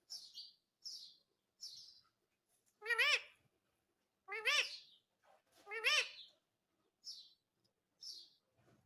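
Indian ringneck parrot calling: short high chirps, with three louder, wavering calls about a second and a half apart in the middle.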